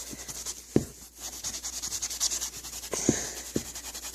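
Damp magic eraser scrubbing scuffs on a shoe in quick back-and-forth strokes, about five a second, with a few soft knocks.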